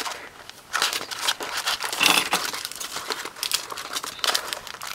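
Plastic-wrapped scrapbook sticker packs crinkling and rustling as they are shuffled through inside a paper file folder, in irregular bursts.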